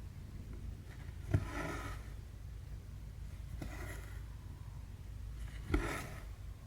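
Needle and thread working through cross-stitch fabric: three strokes about two seconds apart, each a sharp tap as the needle goes through, then a short rasping pull as the thread is drawn tight.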